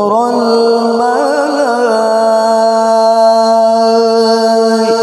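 Man's voice in melodic Qur'anic recitation (tilawah) into a microphone. A short wavering ornament about a second in, then one long held note.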